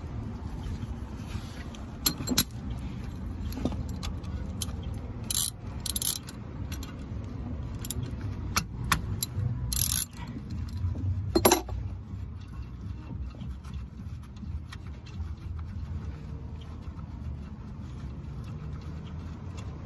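Scattered metallic clinks and scrapes as gloved hands work on a car's front brake caliper and pads, the loudest clink about eleven seconds in, over a steady low rumble.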